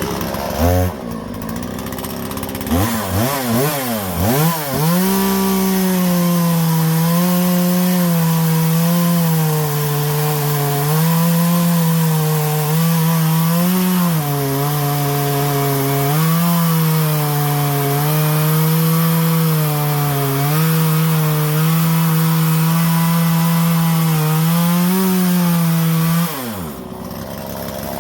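Husqvarna 120 Mark II two-stroke chainsaw with a new Hipa chain, blipped a few times and then held at full throttle while cutting through hardwood across the grain for about twenty seconds. Its engine note dips and recovers again and again as the chain bites, then drops back to idle near the end.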